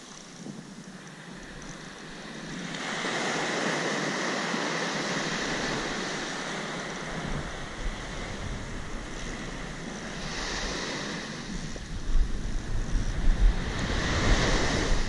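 Surf breaking and washing up the beach, swelling about three seconds in and again later. Wind buffets the microphone in gusts over the last few seconds.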